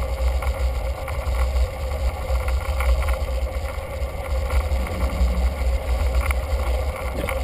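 Wind buffeting the microphone of a camera mounted on a moving bicycle: a strong, fluttering low rumble with a steady faint hum above it.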